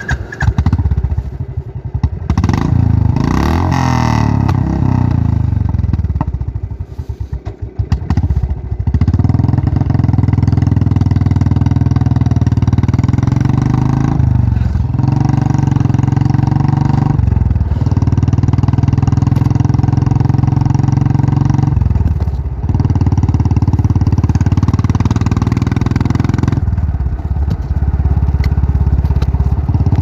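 Royal Enfield Bullet single-cylinder motorcycle engine, revved with its pitch rising and falling for the first few seconds and running unevenly for a moment. It then settles into a steady, loud run from about nine seconds in, broken by four brief dips.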